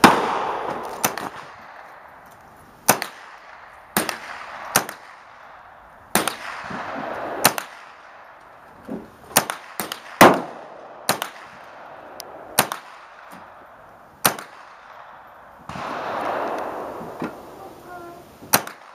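Single shots from a Smith & Wesson M&P 15-22, a .22 LR semi-automatic rifle, fired one at a time at an irregular pace of about one a second, some sharper and louder than others.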